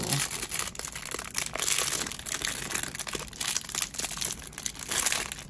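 Clear plastic bag crinkling and rustling in the hands as it is opened and a small plastic toy figure is worked out of it, a steady run of dense little crackles.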